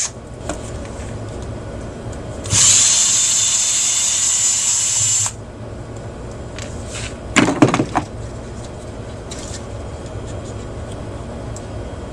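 A cordless drill-driver runs with a steady high whir for about three seconds and stops abruptly, as screws are driven during disassembly of a stereo receiver. A few seconds later there is a short clatter.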